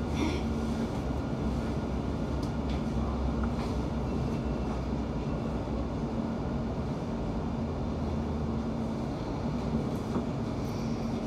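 Interior of a London Overground Class 710 electric train in motion: a steady rumble of wheels on the track with a constant low hum and a few scattered clicks.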